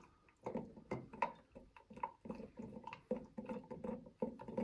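AeroPress paddle stirrer stirring coffee grounds and hot water in the plastic brewing chamber: a run of soft wet swishes and knocks against the chamber walls, about three a second, starting about half a second in.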